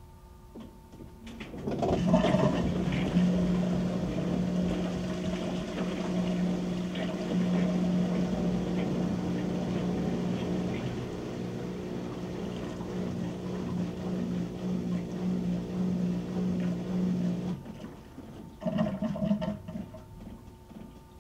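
Whirlpool WTW7300DW top-load washer running its rinse-and-spin cycle: a steady hum with rushing water starts about two seconds in, runs for some fifteen seconds and cuts off, then comes back in a short burst near the end.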